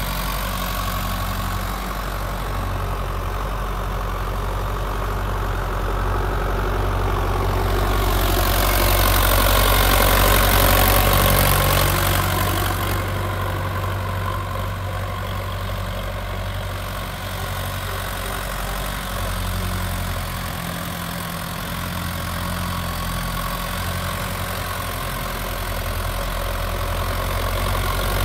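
Diesel engine of a Sonalika DI 750 tractor running steadily while it drags a leveling board over loose soil. It swells louder for a few seconds about a third of the way through.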